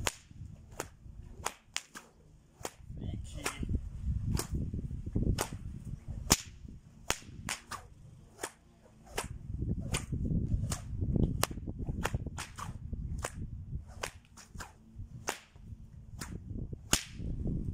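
A six-foot, eight-plait cowhide Australian stockwhip being cracked over and over in a continuous routine: dozens of sharp cracks, about two a second in an uneven rhythm, over a low rumble.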